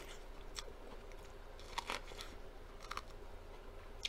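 Close-up biting and chewing of grilled corn on the cob: a handful of crisp crunches of the kernels about a second apart, with wet chewing between them.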